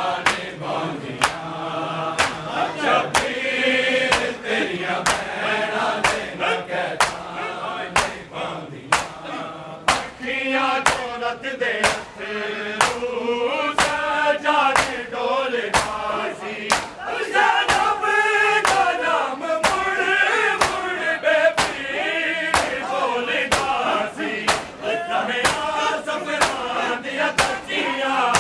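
Crowd of Shia mourners chanting a noha together, beating their chests with their palms (matam) in a steady rhythm of sharp slaps, roughly two a second.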